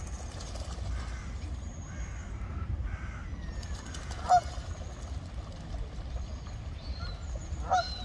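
Coots calling with short, sharp honking calls, the loudest about four seconds in and another near the end, over a steady low rumble of wind on the microphone.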